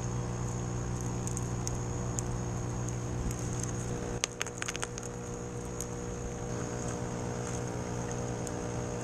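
Steady electric hum of an air pump feeding the air stones in deep-water-culture buckets. About four seconds in there is a quick run of clicks as expanded clay pebbles are dropped into a plastic net cup.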